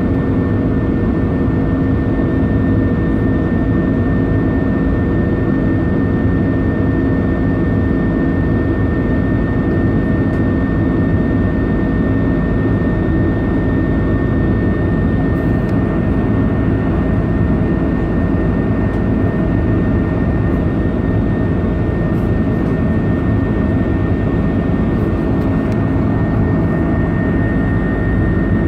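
Jet airliner in flight heard from inside the passenger cabin: a steady, loud mix of engine noise and rushing air, with a constant high whine above it.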